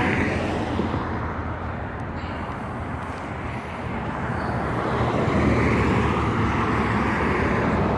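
Diesel locomotives of an approaching freight train rumbling, a steady low drone that dips briefly and then grows louder in the second half.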